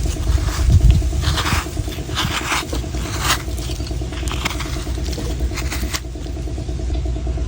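Knife scraping and chopping at a coconut in quick, irregular strokes that stop about six seconds in, over a steady low mechanical hum.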